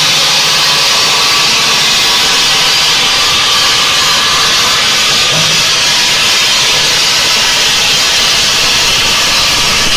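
Bridge saw's large circular diamond blade cutting through a row of granite blocks: a loud, steady grinding hiss that holds an even level throughout.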